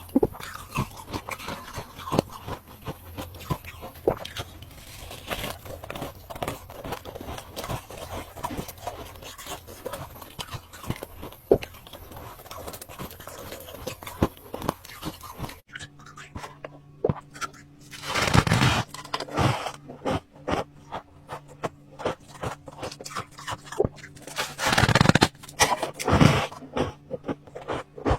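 Ice cubes being bitten and crunched close to the microphone: a string of sharp, irregular crunches, with two louder, longer bouts of crunching in the second half. A faint steady hum comes in about halfway through.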